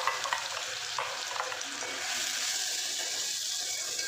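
Wet onion, garlic and green chilli paste sizzling as it hits hot oil in an aluminium pot and is stirred in with a spoon, with a few sharp clicks in the first second or so. This is the start of frying the curry masala.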